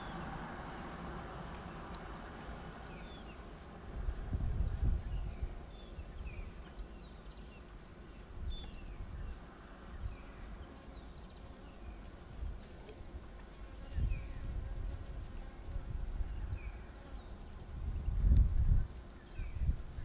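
Steady high-pitched drone of insects in the bush, with faint short chirps scattered over it. A few low rumbling bumps come and go, loudest about four seconds in and near the end.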